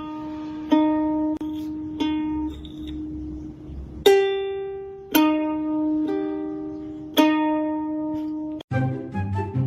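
Background music of slow, single plucked-string notes, each ringing out and fading. Near the end it cuts to a busier tune with many quick notes.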